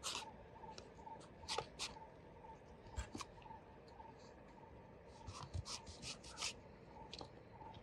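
Large steel knife slicing through peeled breadfruit on a wooden cutting board: short crisp cuts and taps of the blade on the board, in small clusters.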